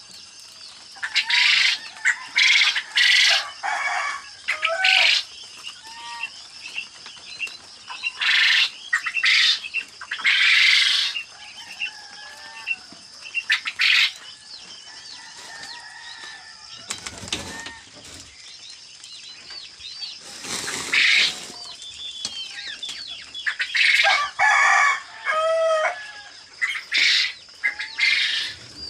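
Caged quail chirping with many small, short calls, broken by repeated loud bursts of fluttering and scuffling in the wire cages.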